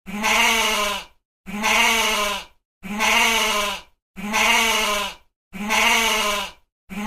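Goat bleating: the same wavering call of about a second, repeated six times at an even pace, one every second and a half or so.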